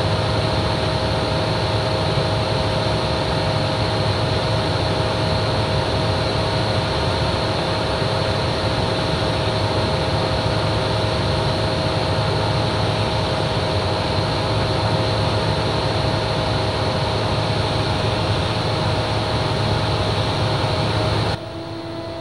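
Single-engine light aircraft's piston engine and propeller droning steadily in cruise, with rushing air, as heard inside the cockpit. The sound drops suddenly in level near the end.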